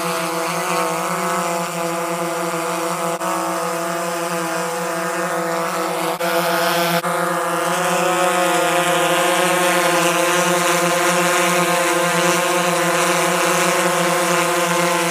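Visuo XS809S Battle Sharks quadcopter flying close by, its propellers making a steady buzzing whine that wavers slightly in pitch as it manoeuvres, growing a little louder about halfway through.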